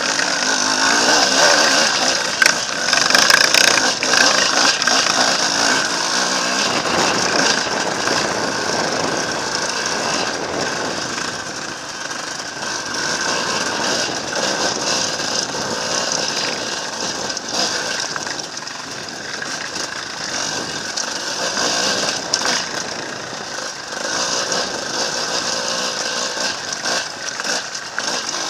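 Enduro motorcycle engine running and revving under load on a rocky climb, with the bike rattling and knocking over stones. It is loudest in the first few seconds.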